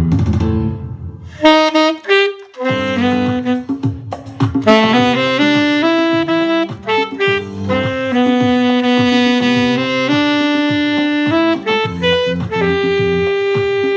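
Alto saxophone playing a jazz melody in held and moving notes, with two short breaks about one and two and a half seconds in before the phrases carry on.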